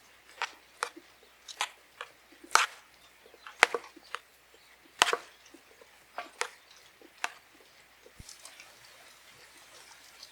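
Sharp knocks on wood, about a dozen at an irregular pace of roughly one a second, stopping a little after two-thirds of the way through.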